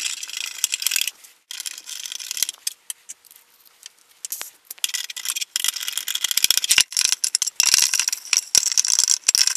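Small screws, nuts and a screwdriver rattling and clicking against a thin sheet-aluminium enclosure as rubber feet are screwed onto it. The quick clicking comes in spells, with a lull about 3 to 4.5 seconds in, and is busiest near the end.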